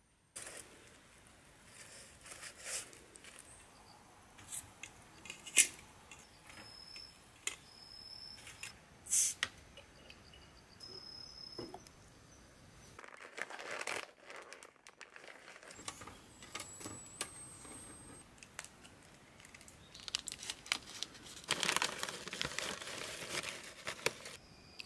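Crinkly plastic snack bag being handled and torn, with a few sharp clicks. Near the end there is a dense crackle as crinkle-cut potato chips are tipped out of the bag onto a wire grill mesh.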